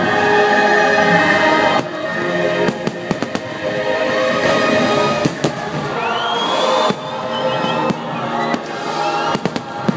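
Aerial fireworks shells bursting with sharp bangs over loud fireworks-show music. The bangs come in clusters: several around three seconds in, one about halfway, and a quick run near the end.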